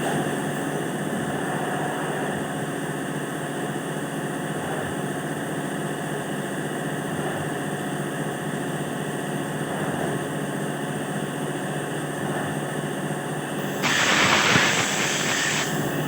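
A machine running steadily, with a louder burst of hiss lasting about two seconds near the end.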